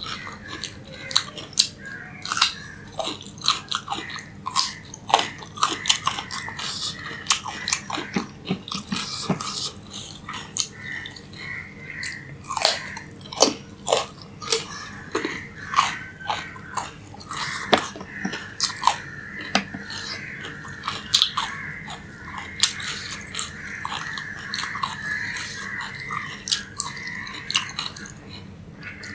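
A person biting and chewing raw carrot pieces: a quick, irregular run of crisp crunches.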